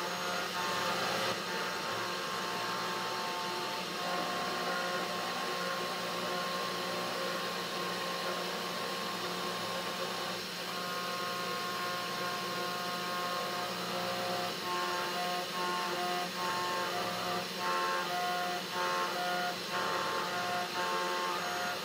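Desktop CNC router (3018 Pro Max) engraving a 2 mm acrylic plate with a 30-degree V-bit under water: the spindle motor runs steadily with a constant whine. In the second half, the stepper motors driving the axes add short whining tones that change pitch every half second or so as the bit traces the engraving.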